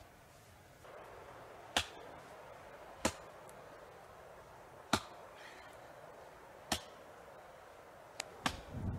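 Four sharp single blows of an axe into wood, each a second and a half to two seconds apart, followed by two lighter knocks. A louder rustling noise starts near the end.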